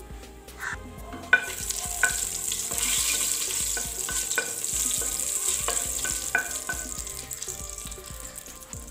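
Whole spices and a bay leaf sizzling in hot oil in a stainless steel pot as they are stirred with a wooden spatula, with a few sharp clicks. The sizzle grows louder about a second in.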